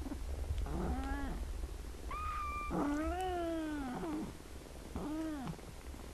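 Kittens meowing: four separate calls, a short rising mew about a second in, a high, thin, level mew about two seconds in, then at once a longer wavering meow of over a second, and a last short mew near the end.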